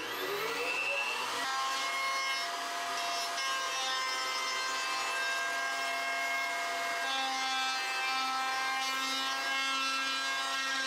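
Table-mounted router spinning up with a rising whine in the first second or so, then running at a steady high whine while it trims the rough bottom edge of a red oak bowl.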